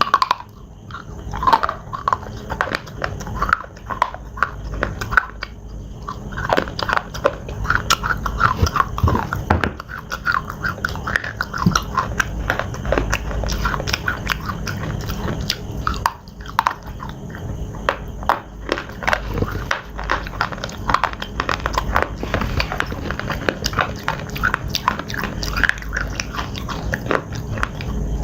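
Close-miked biting and chewing of pieces of slate: a dense, irregular run of sharp crunches and cracks.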